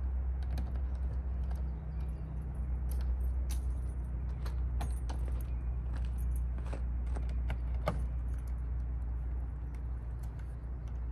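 Scattered metallic clicks, clinks and knocks from handling the latches and fittings of a truck's hard-shell rooftop tent and its mounted fuel cans, over a steady low rumble.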